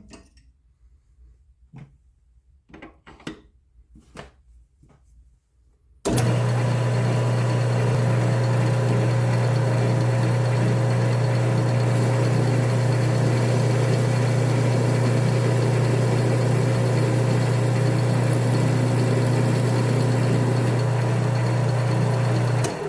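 A few light knocks of handling, then about six seconds in an electric shop machine switches on and runs at a steady speed with a strong hum. Near the end it is switched off and winds down, falling in pitch.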